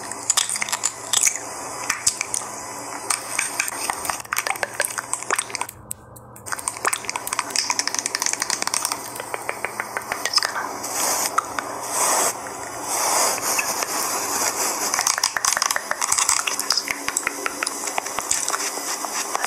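Close-miked ASMR sounds: a dense stream of small, crisp clicks and crackles, with a brief lull about six seconds in.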